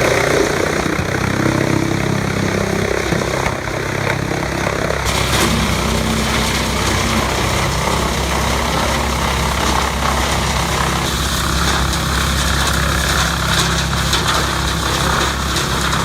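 Wood chipper running: a steady engine drone with a rough chipping noise over it. The sound shifts about five seconds in.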